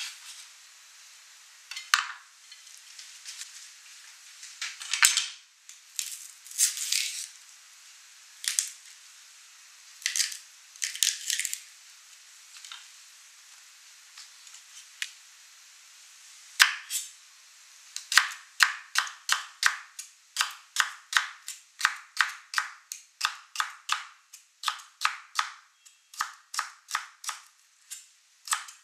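Kitchen knife striking a bamboo cutting board: scattered knocks and scrapes at first, then, past the halfway point, a steady run of chopping strokes about two a second as celery is sliced.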